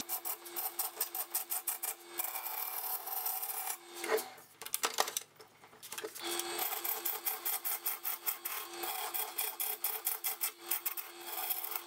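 A gouge cutting a spinning wood blank on a lathe: a fast, rhythmic chatter of wood being cut away, over a steady hum. The cutting drops away briefly around the middle, then resumes.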